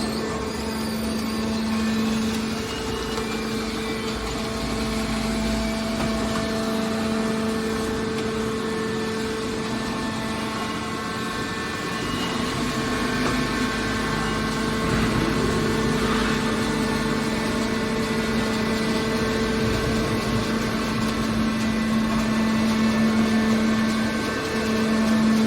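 Hydraulic metal scrap baler running: a steady machine hum with a constant pitch and a low rumble beneath it.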